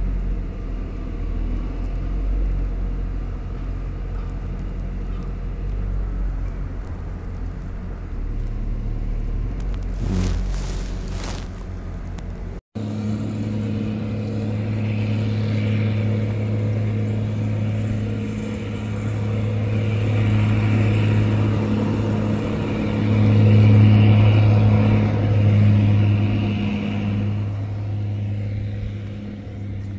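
The engine of a large marina boat-handling forklift running: a low rumble with a steady hum, with a brief rattle near the middle and a swell in the hum a few seconds before the end.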